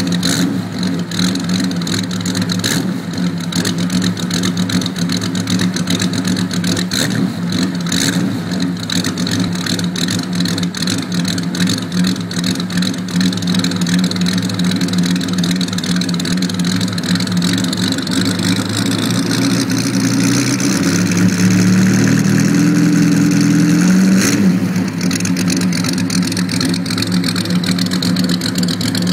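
Bugatti Type 35's straight-eight engine idling, heard at the exhaust outlet. About twenty seconds in it is revved up for a few seconds, then drops sharply back to idle.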